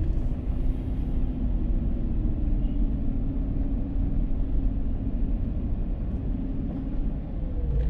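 Dodge Charger's 3.5-litre V6 running while driving, under a steady low rumble of tyres and road, its engine tone drifting slightly in pitch.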